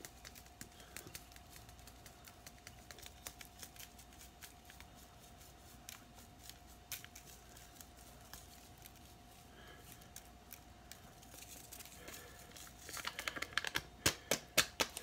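Faint scattered clicks and rustles of handling seasoning containers over a steady faint hum, then a quick run of sharp taps near the end as a spice shaker is shaken over raw pork steaks.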